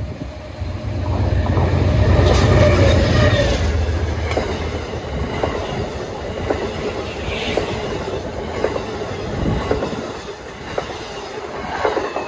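Amtrak passenger train passing close by at speed. The diesel locomotive's deep rumble swells over the first few seconds, then the stainless-steel Amfleet coaches rush past with a steady run of wheel clicks over the rail joints.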